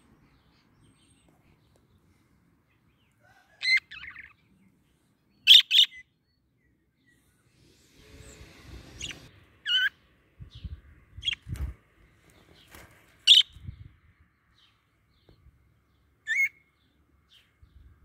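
Budgerigars giving short chirping calls, one or two at a time every couple of seconds, with some quieter chatter around the middle. A few soft low thumps come between the calls.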